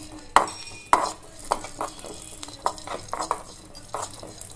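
A metal spoon scraping and stirring cumin seeds and black peppercorns in a dry metal kadai as they roast. Short, irregular scrapes come about two a second.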